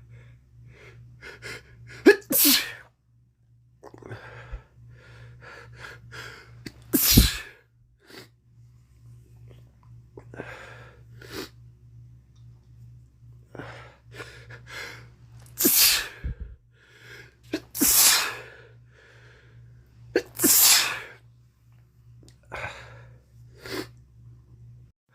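A man with a head cold sneezing repeatedly: about five loud sneezes spread through, with quieter breaths and sniffs between them.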